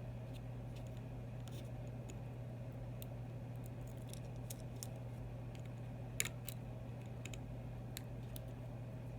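Faint clicks and ticks of a small screwdriver and tiny parts being handled while an iPhone 6 is taken apart, with a sharper double click about six seconds in, over a steady low hum.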